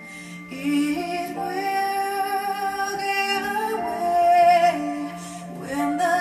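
Music with a singing voice holding long, wavering notes, played back through a pair of Jensen CC315 three-way floor-standing speakers.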